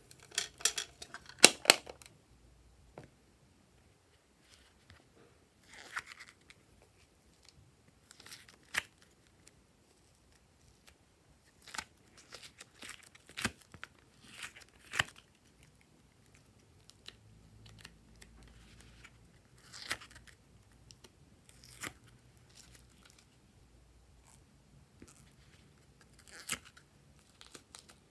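Sporadic crinkly, crackly handling sounds with sharp clicks. Near the start a plastic box is tipped and tapped to pour foam beads and glitter onto slime. Then soft clay is pressed out of a silicone hexagon mould and set down on the slime.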